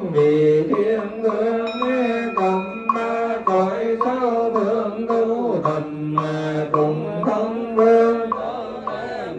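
Vietnamese funeral chanting with music: a slow, held melodic line that bends in pitch, over a steady percussive beat of about two strokes a second.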